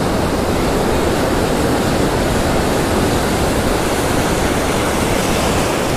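Rough ocean surf rushing: a loud, steady wash of breaking whitewater with no let-up.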